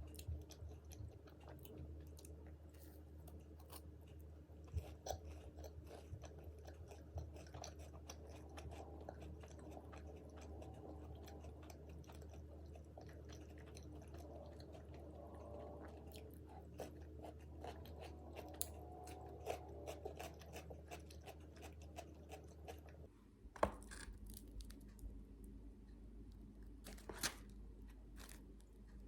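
Close-miked chewing and crunching of crispy fried food, with many short sharp crunches; the loudest single crunch comes about three-quarters of the way in.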